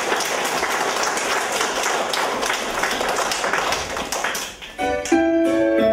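Children's applause, a steady patter of many small hands clapping, for about four and a half seconds. It dies away, and near the end a keyboard starts playing a piano-sounding tune in steady held notes.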